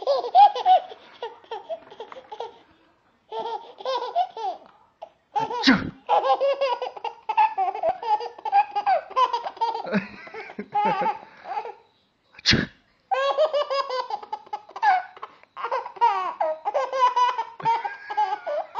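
Baby girl laughing in repeated bursts of giggles and belly laughs, set off by her father's sneezes. Two short, sharp sneezes cut in, about six seconds in and again near the middle.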